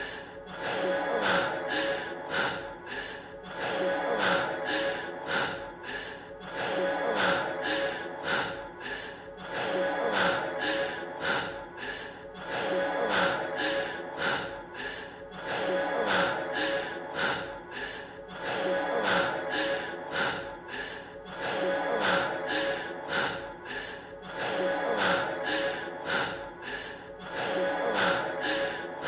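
A man's heavy breathing, quick sharp gasps in and out as if out of breath, over the song's closing music with its held tones. The same short stretch repeats every few seconds.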